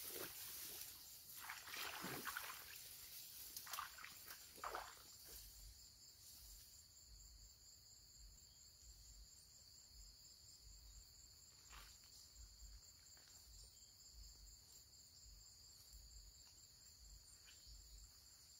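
Footsteps and rustling in tall grass and shallow mud on a pond bank for the first few seconds, then near quiet with a faint, steady high-pitched insect drone.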